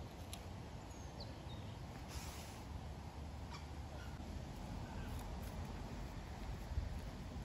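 Quiet outdoor ambience: a steady low wind rumble with a few brief, faint bird chirps.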